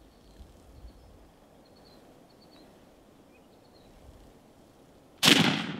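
A single shotgun shot about five seconds in, sudden and loud, fading over about half a second: a hunter firing at a Merriam's turkey gobbler. Before it, a few faint bird chirps over a quiet outdoor background.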